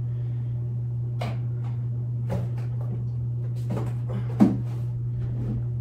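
Boxes and containers being set down and shifted on top of a refrigerator: a few light knocks and clunks, the loudest about four and a half seconds in, over a steady low hum.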